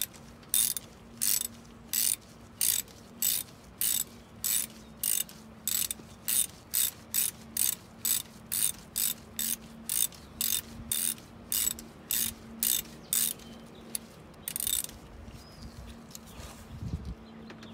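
Hand ratchet with an E10 Torx bit clicking on each return stroke, about two strokes a second, as it backs out the oil filter cover bolt on a Sea-Doo RXPX 300 engine. The clicking stops about 13 seconds in, with one last stroke a little later.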